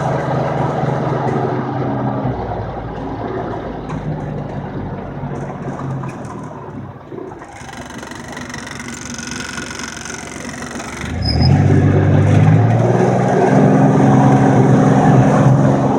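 Vehicle engine running under way: it drops in pitch about two seconds in and eases off, with a rushing hiss between about eight and eleven seconds. At about eleven seconds it revs up and pulls noticeably louder, as under acceleration.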